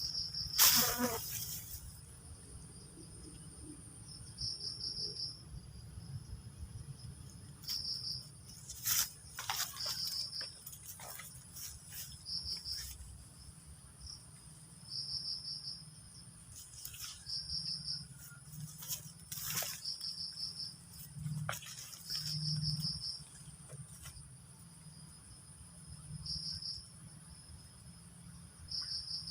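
Insects calling: short pulsed cricket-like chirps repeating every second or two over a steady high-pitched insect drone. Scattered sharp clicks and knocks come in, the loudest about a second in.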